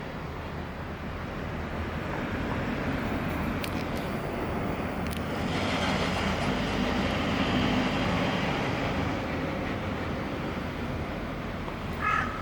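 A passing vehicle: a steady rush of noise that swells to a peak about halfway and then fades. A crow caws once at the very end.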